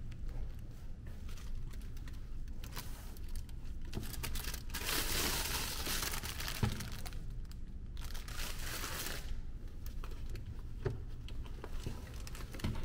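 Thin plastic bag crinkling as it is handled, in two spells near the middle, over a steady low hum, with a few small clicks and rustles from handling around them.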